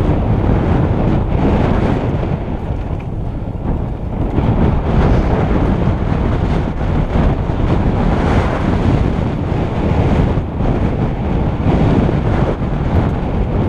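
Wind buffeting the microphone over the rumble of mountain bike tyres rolling fast down a rough dirt trail, with the bike rattling over stones and bumps.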